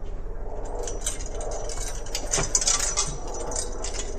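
Light clinks and clatter of small metal parts and tools being handled on a workbench, a quick run of clicks a little past the middle, over a steady low hum.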